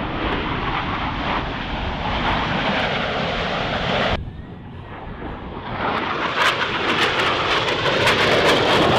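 Jet noise from Blue Angels F/A-18 Super Hornets flying overhead. It cuts off abruptly about four seconds in, then swells again with a crackling edge as a jet comes closer.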